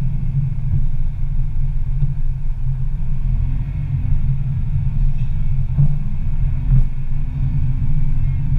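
Steady low rumble of a car driving slowly in city traffic, with engine and tyre noise. Two short sharp clicks or knocks come about six and seven seconds in.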